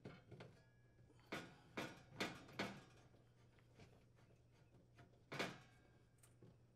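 Faint, short metallic clicks and scrapes of a Phillips screwdriver turning a screw into the sheet-metal bracket of a gas oven's broil burner tube: several quick ones in the first three seconds and one more about five seconds in.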